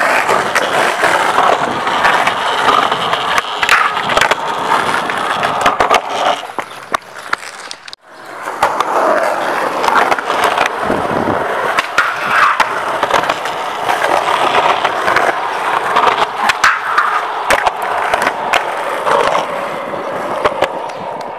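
Skateboard wheels rolling over concrete, with many sharp clacks from the board. The rolling cuts out briefly about eight seconds in, then starts again.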